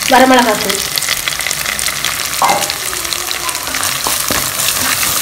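Onions, green chillies and whole spices sizzling and crackling in hot oil in a pressure cooker as red chilli powder and biryani masala go in, then stirred with a utensil, with a few sharp clicks about four seconds in.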